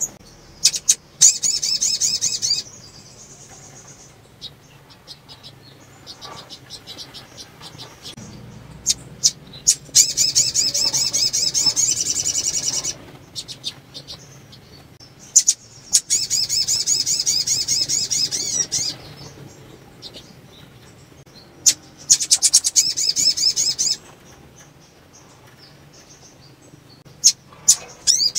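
Caged female sunbird giving bursts of rapid, high-pitched twittering song, four runs of about two to three seconds each, with short sharp chips between. The keeper presents this as the call of a female in breeding condition, used to set males singing.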